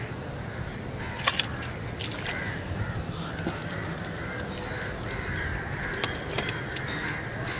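Crows cawing over and over, short calls a little under a second apart, with a few sharp clicks among them.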